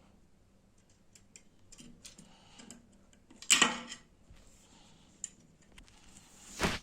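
Small clicks and taps of metal parts being handled while a clothes iron is reassembled, with a loud clattering knock about three and a half seconds in and another sharp knock near the end.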